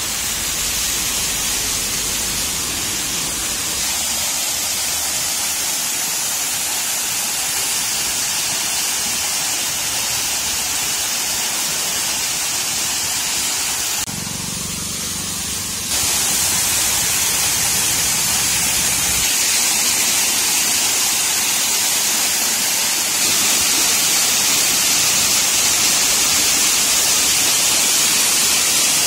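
Waterfall: steady rushing of falling water, a dense even noise whose level and colour shift abruptly a few times.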